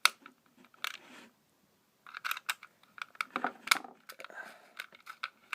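Irregular sharp clicks, snips and rattles of hand tools working wires into a fire alarm's screw terminals. There is a single click at the start and another about a second in, then a busier run of clicks from about two seconds in.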